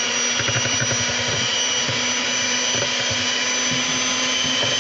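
Electric hand mixer running steadily at one speed, its beaters creaming butter in a metal bowl.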